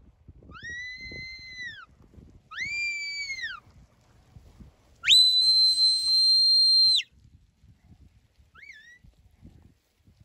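Shepherd's whistle commands to a working sheepdog: two notes that each rise, hold and fall, then a long, loud, steady higher note about five seconds in, and a short rising chirp near the end.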